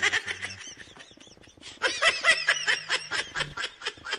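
Siberian husky vocalizing in quick runs of short, high-pitched cries: a brief flurry at the start, then a longer, louder one in the middle.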